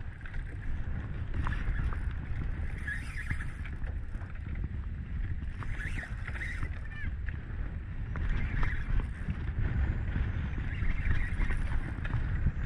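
Low, steady rumble of wind and choppy water on a small boat at sea, with short high squeaks every few seconds.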